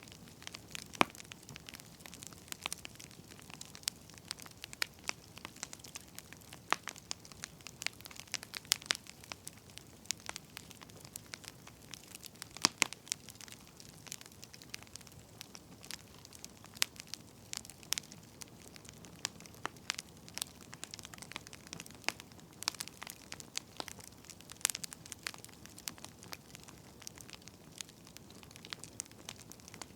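Firewood burning in a fire, crackling with irregular sharp pops and snaps, several a second, over a soft hiss.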